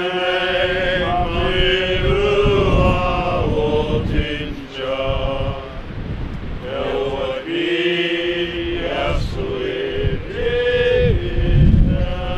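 A graveside congregation singing a slow funeral hymn together, holding long notes with short breaks between phrases, while wind rumbles on the microphone.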